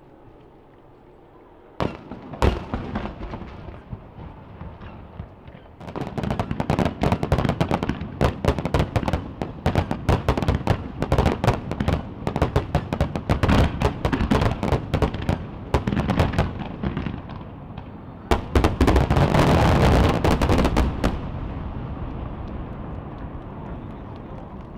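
Aerial fireworks display: two sharp bangs about two seconds in, then from about six seconds a dense run of rapid crackling bursts, with a second loud volley near the end that trails off.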